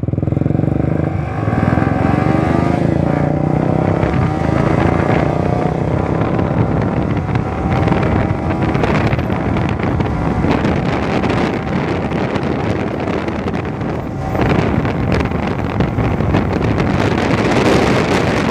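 Yamaha R15 V3's single-cylinder engine running under way, with heavy wind rush on the microphone. The engine note climbs over the first few seconds, then sits under the wind.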